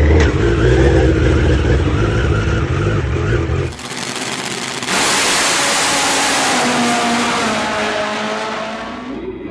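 Drag racing motorcycle engines: for the first few seconds a drag bike's engine runs loud and close. After a cut, a drag bike runs hard down the strip from about five seconds in, its engine note falling in pitch as it pulls away.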